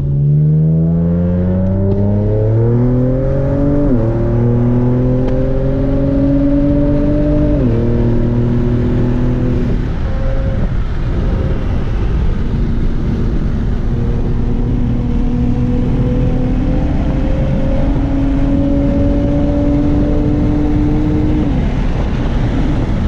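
The 2023 Nissan Z Proto's twin-turbo 3.0-litre V6, with catless downpipes and a full 3-inch exhaust, heard from inside the cabin accelerating: the revs climb steeply with quick upshifts of the nine-speed automatic about four and seven and a half seconds in. It then eases off, cruises with the revs creeping up slowly, and drops again near the end.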